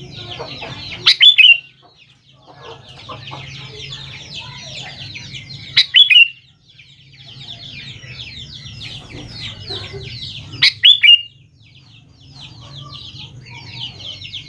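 Sooty-headed bulbul calling in repeated bouts. Each bout is a run of rapid chattering notes that ends in a few loud, sharp notes, and the bouts come about every four to five seconds. A faint low hum lies underneath.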